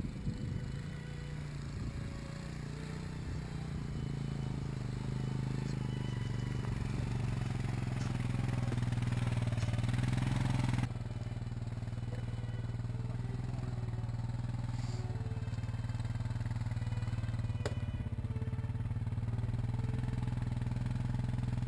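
ATV (four-wheeler) engine running as it drives up under load, growing steadily louder over the first ten seconds. About halfway through it drops suddenly to a lower, steady running level.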